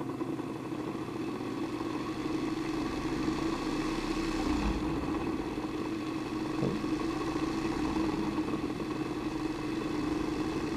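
Dumore grinder motor, an old single-phase capacitor motor with a copper induction rotor, humming steadily as it runs on reduced current through a series current-limiting resistor; the hum builds over the first few seconds and then holds. It reaches a certain speed and then magnetically pulls itself back down instead of making full speed, which the owner puts down to the capacitor and main winding interacting and building up a resonance.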